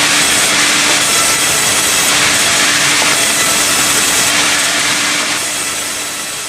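Sawmill saw cutting through timber, a loud steady sawing noise with a constant hum beneath it, fading away over the last second or so.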